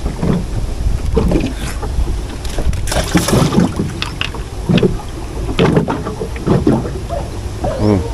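Wind rumbling on the microphone, with scattered light knocks and rustles from handling bait and gear, and a brief louder rustle about three seconds in.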